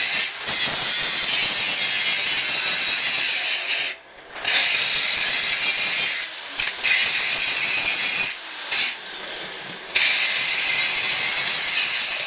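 Angle grinder grinding steel in long passes, a hissing noise that drops away briefly twice and eases for a moment near the end.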